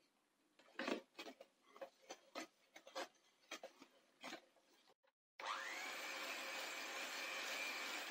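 A wire whisk scraping and tapping in a glass bowl of batter in quick, irregular strokes. After a brief break, an electric hand mixer starts up: its motor whine rises quickly and then runs steadily as the beaters mix the batter.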